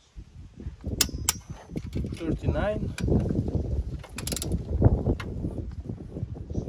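Wrench ratcheting with sharp metallic clicks as the timing-sprocket bolts on a YD25 diesel engine are run down and tightened.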